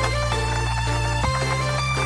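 Background music: an electronic track with held synth chords over a bass line, the chord changing about a second in.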